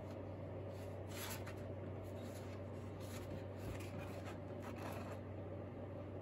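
Sheets of paper rustling and sliding as drawings are shuffled on a pile and one is lifted, in several short bursts of rustle over a steady low hum.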